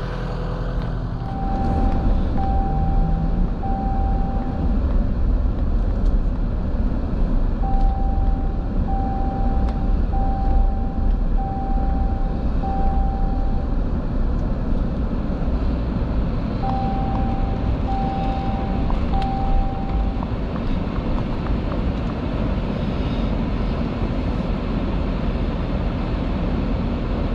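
A vehicle running with a steady engine and road rumble. An electronic warning beep repeats about once a second in three runs, about a second in, around eight seconds in, and around seventeen seconds in.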